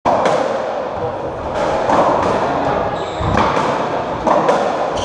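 UK racketball rally: the rubber ball cracking off strung rackets and the court walls, a string of sharp hits every half-second to second, each ringing briefly in the enclosed court.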